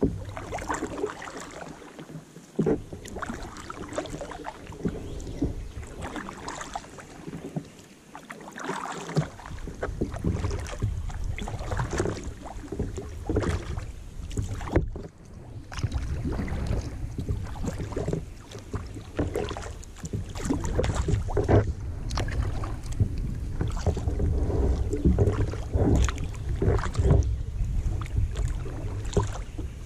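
Kayak paddling: repeated paddle strokes dipping and splashing in the lake water. From about halfway, a low wind rumble on the microphone runs under the strokes.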